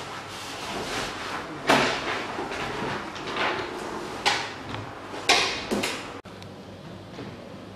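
A door being handled and opened: several sharp knocks and clicks from the door and its latch, with footsteps on a hard floor. The sound drops off abruptly a little past six seconds.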